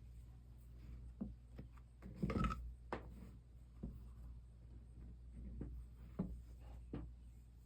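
Light scattered taps and clicks of stained-glass pieces and tools being handled on a workbench during soldering, with a louder scrape and rattle about two seconds in.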